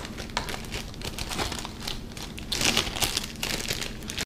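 Packaging crinkling and rustling as it is handled, with a louder stretch of crinkling about two and a half seconds in.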